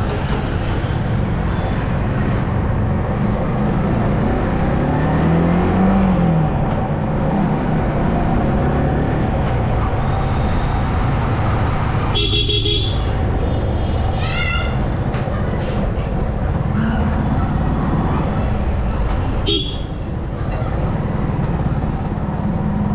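Yamaha R15M motorcycle engine running with road noise, its pitch rising and falling about five seconds in. A horn honks briefly about twelve seconds in and again near twenty seconds, with a short rising run of tones in between.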